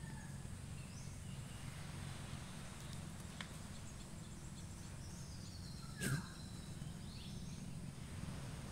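Outdoor ambience: a steady low rumble with birds calling faintly now and then, and one sharp knock about six seconds in.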